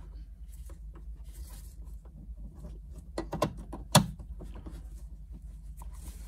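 Small clicks and handling noise as a shift cable end is fitted onto a Numeric short shifter's linkage, with a few taps and one sharp click about four seconds in, over a low steady hum.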